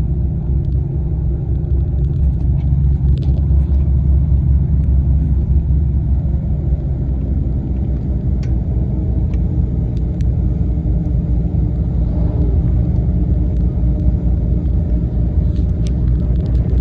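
Steady low engine and road rumble heard inside the cabin of a moving tour bus.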